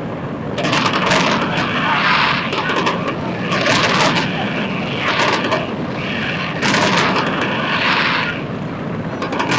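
Aerial fireworks bursting and crackling in waves about every three seconds, each wave a dense stretch of sharp crackles lasting two to three seconds, over a steady low rumble.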